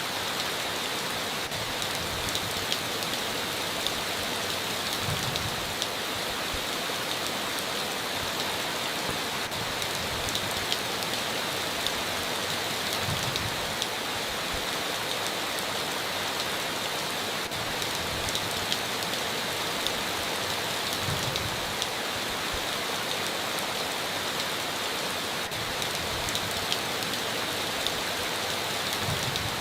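Steady heavy rain, a dense even hiss with scattered sharp drop impacts, and faint low thuds about every eight seconds.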